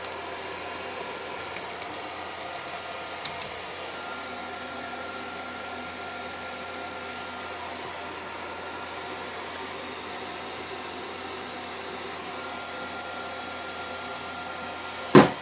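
Gamewell E3 voice evacuation speaker circuit giving a steady hiss, with a small click about three seconds in and one sharp, loud pop near the end. The popping comes from a miswired Class A circuit with its wires flip-flopped.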